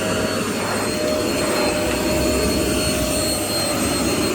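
Bush V19T01A20S stick vacuum cleaner running steadily: a constant motor whine over the rush of air.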